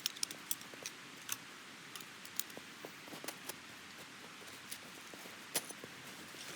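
Irregular light ticks and clicks, several a second, over a faint steady hiss.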